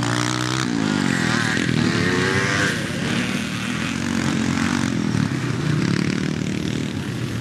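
Classic motocross motorcycle engine revving as the bike rides round the course: the note drops sharply under a second in, climbs again as the rider opens the throttle, then settles into a broader engine sound.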